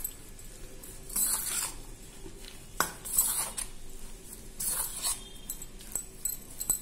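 Metal spoon stirring spice-coated prawns in a stainless steel bowl: short scrapes and clinks of the spoon against the bowl at uneven intervals, with one sharper clink near the middle.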